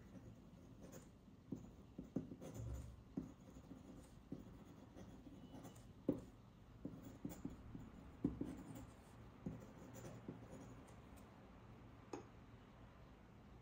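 Faint scratching of a metal dip-pen nib, set in a feather quill holder, on paper as handwriting is written, with irregular small strokes and ticks.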